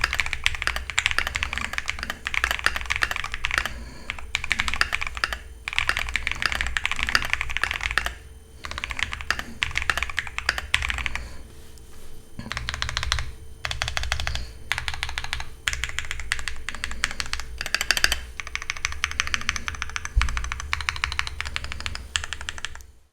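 Typing on a Keychron Q2 mechanical keyboard with a steel plate, plate foam and lubed Jelly Strawberry v4 switches, modded with tape, a force-break mod, a sound mat and O-rings under the keycaps. The key presses come in fast bursts with short pauses between them, and more spread-out separate key presses follow in the second half.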